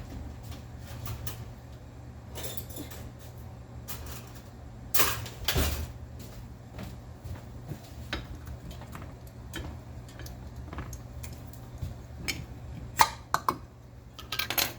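Kitchen utensil clatter: a spoon scraping and clinking against a container and the pot as ketchup is emptied into barbecue sauce, with a few sharp clinks near the end, over a steady low hum.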